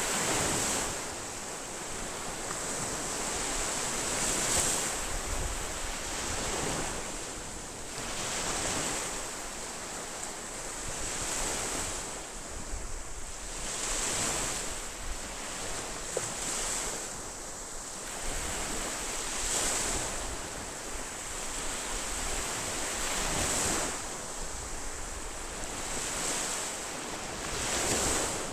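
Ocean waves breaking, each wave surging in every four to six seconds over a steady wash of surf.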